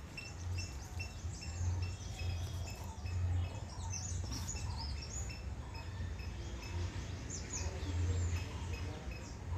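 Several small birds chirping and singing, with many short high chirps and quick sweeping notes, one short note repeated over and over, over a steady low rumble.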